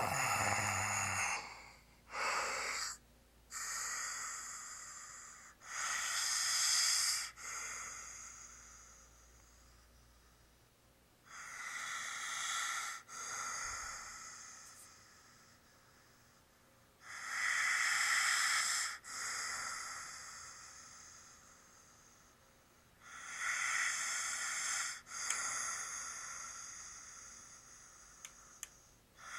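Snoring in deep sleep: five slow breaths, about one every six seconds. Each is a loud, airy rasp followed by a slowly fading tail, with little low rumble.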